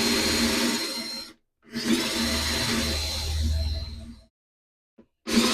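Electric drill run in bursts, boring through the cypress wood roof for eye bolts. The motor runs until about a second in, stops briefly, runs again for about two and a half seconds, and starts again near the end.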